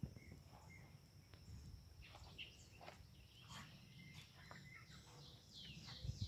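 Near silence: faint outdoor ambience with scattered short bird chirps and a faint steady high whine, and a soft low bump near the end.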